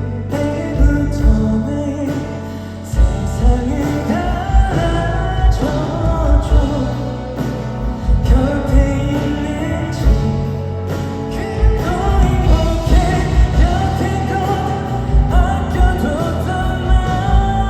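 Live band playing a slow pop ballad with a steady kick-drum beat and a sung melody line over it, between the lyric lines.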